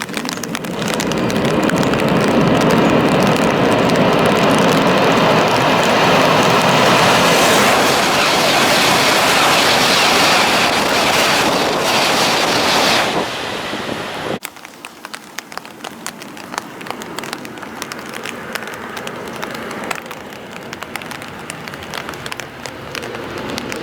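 A Tohoku Shinkansen train rushing past at high speed, with a loud, steady roar of air and wheels. The roar fades and cuts off sharply about fourteen seconds in, leaving a quieter crackling rush that swells again near the end.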